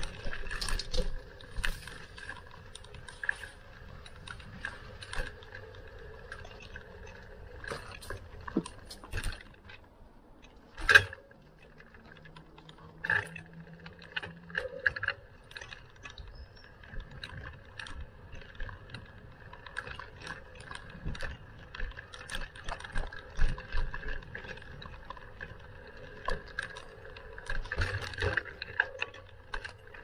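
Bicycle being ridden: parts rattling and clicking irregularly over bumps, under a steady faint hum, with one sharp knock about eleven seconds in.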